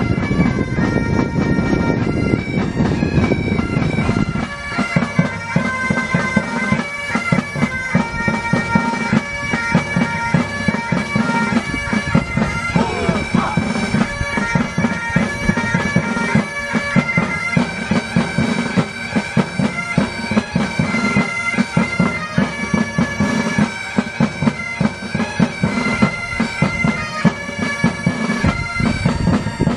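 Military pipe band bagpipes playing a tune over their steady drones.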